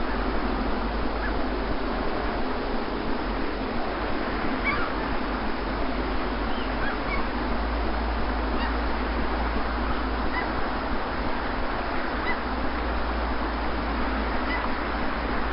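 Steady wash of the sea with faint, short bird calls scattered throughout.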